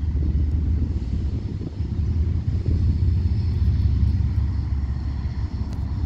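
CSX diesel locomotives running, a steady low engine rumble as they pull a freight train out of the yard.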